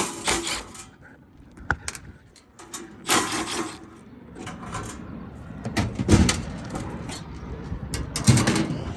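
Scattered clicks, knocks and scrapes of metal parts being handled as another cover panel is taken off a rooftop air-conditioning unit, with a few louder clatters.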